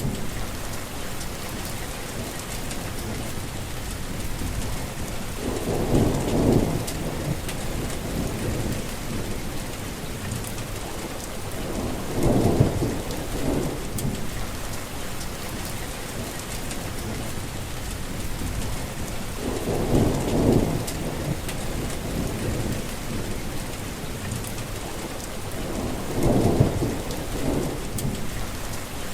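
Heavy rain falling in a steady, dense patter. Low rumbles of thunder swell up four times, about every six to seven seconds.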